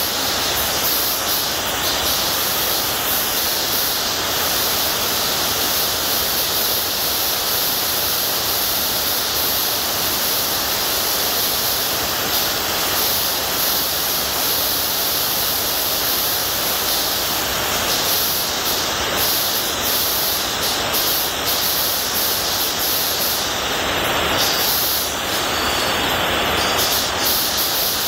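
Steady, loud hiss like static or white noise, spread evenly from low to very high pitch, with no speech over it.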